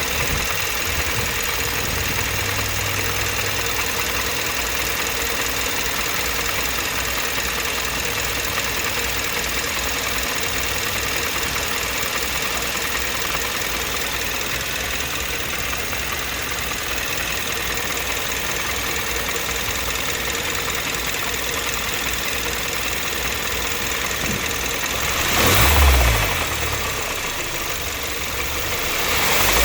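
2015 Kia Optima EX's 2.4-litre GDI four-cylinder engine idling steadily, making a noise the owner calls strange. Near the end the throttle is blipped twice, the engine speed rising briefly and dropping back to idle.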